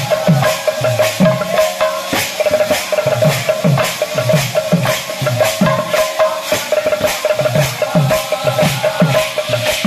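Sambalpuri kirtan music. A large double-headed barrel drum is played by hand, its deep strokes falling in pitch about twice a second. Small hand cymbals clash rapidly over it, and a steady note is held throughout.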